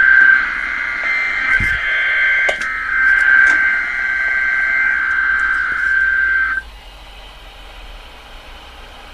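EAS/SAME digital header tones of a NOAA Weather Radio required weekly test: a harsh, buzzing data screech from the radio that cuts off suddenly about six and a half seconds in, leaving faint radio hiss.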